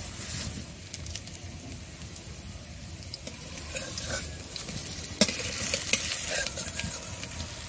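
Pumpkin-flower pakoras in gram-flour batter sizzling in oil in a kadai. From about four seconds in, a flat metal spatula scrapes and knocks against the pan as they are turned, with a sharp clack just after five seconds, the loudest sound.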